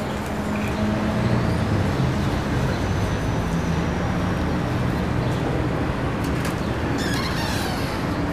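Street traffic: motor vehicle engines running and passing in a steady urban din, with a short rattling clatter near the end.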